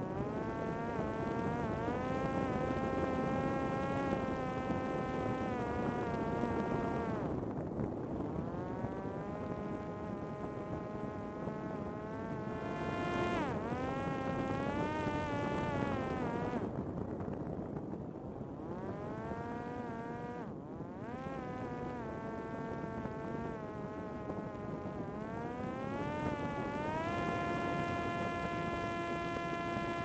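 Parrot Disco fixed-wing drone's electric motor and pusher propeller whining in flight, over wind rush. The pitch rises and falls with the throttle, drops a few times, then climbs to a steady higher whine near the end.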